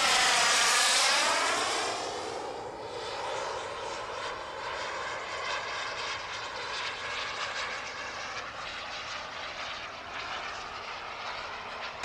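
JetCat P160SX model turbine engine of an RC Eurofighter jet making a fast pass, loudest in the first two seconds with a sweeping whoosh, then settling to a fainter steady turbine rush as the jet flies away.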